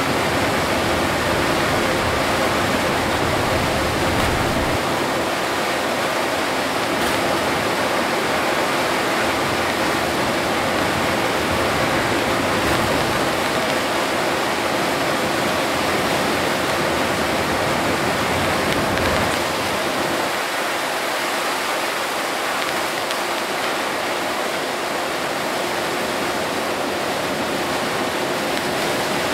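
Steady rushing noise of heavy rain and tyres on a drenched road, heard from inside a Hino Selega HD coach driving through a downpour. The low rumble underneath drops away about twenty seconds in and the noise becomes slightly quieter.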